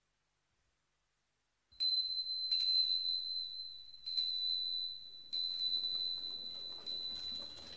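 Silence, then from about two seconds in a high-pitched bell is struck about five times at uneven intervals, each strike ringing on into the next.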